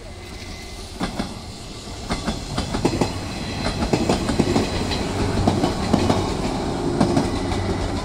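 An electric local train running past, its wheels clattering over the rail joints in a quick run of clicks over a steady rumble. It grows louder about a second in as the cars draw level.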